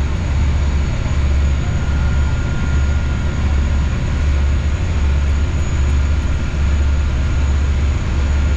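River passenger boat's engines running at cruising speed, heard inside the cabin as a loud, low drone that swells and dips about once a second.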